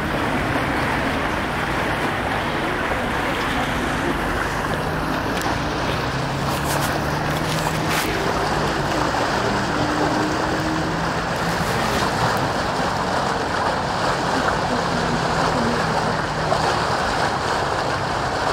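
Steady rushing noise of the swollen river swirling around a stone bridge pier, with wind on the microphone. A low engine hum runs under it through the first half.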